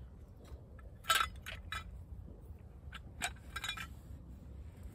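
Light metallic clinks and knocks from a stainless steel camping pot and its hanging chain hook as they are handled, the loudest about a second in and a quick run of them between about three and four seconds in.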